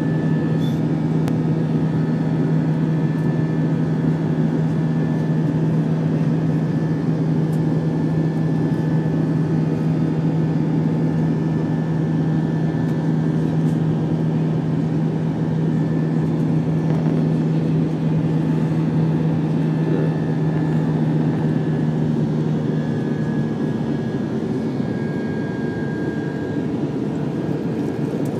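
Jet airliner cabin noise in flight, heard from a seat over the wing: the steady roar of the turbofan engines and rushing air, with a steady low hum that fades out and the noise easing slightly near the end.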